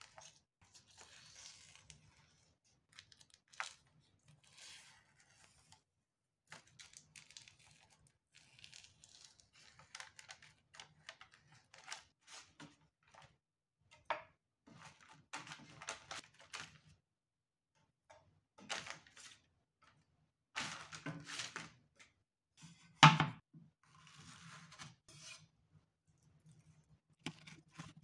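Skins being peeled and pulled off soft roasted red bell peppers on crinkly baking paper: soft tearing and rustling with small clicks of knife and chopsticks. A single louder knock comes about 23 seconds in.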